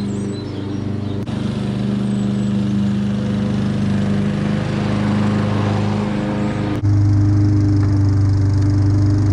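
Hayter petrol rotary lawn mower engine running steadily at a constant speed while cutting grass. About seven seconds in it becomes suddenly louder and closer.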